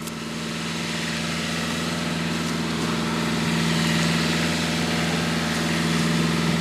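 Fishing boat's engine running steadily, growing louder over the first few seconds and then holding even.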